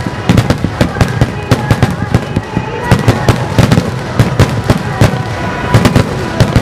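Fireworks: a rapid barrage of aerial shell bursts, several sharp bangs a second.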